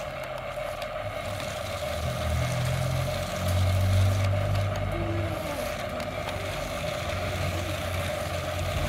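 Small electric motors and gearboxes of a toy RC stunt car running as it drives, a steady whine with a low drone that swells about two seconds in and is loudest near the middle.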